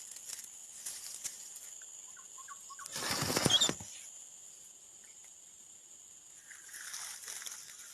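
A steady, high-pitched insect chorus, with a few faint chirps. About three seconds in there is a brief, loud rustle lasting under a second.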